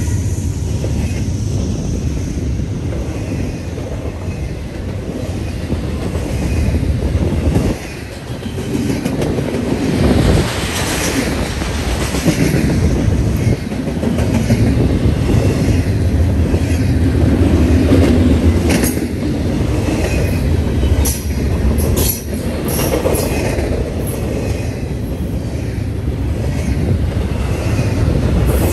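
Double-stack intermodal freight cars rolling past: a steady rumble of steel wheels on rail, with a run of sharp clacks about two-thirds of the way through.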